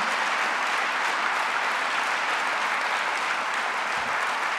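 Audience applauding, a steady dense clapping.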